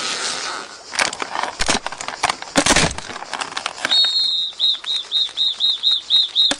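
Cartoon sound effects from an animated ant short: scattered clicks and swishes, then from about four seconds in a quick run of short, high squeaky chirps, about four a second.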